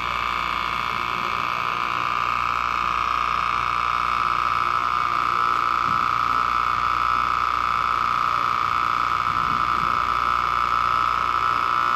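Osma cold espresso machine running during a cold espresso extraction, a steady high-pitched whine with a low hum beneath it.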